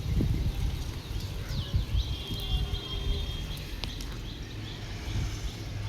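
Wind buffeting the microphone in a low, uneven rumble, with a short high bird call, a quick falling note then a held one, about two seconds in, and a single sharp click just before the four-second mark.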